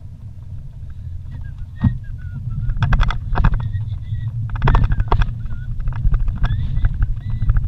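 Vehicle jolting along a rough dirt road: a low rumble from the engine and tyres, with clusters of rattles and knocks as it goes over bumps, about three seconds and five seconds in, and short high squeaks in between.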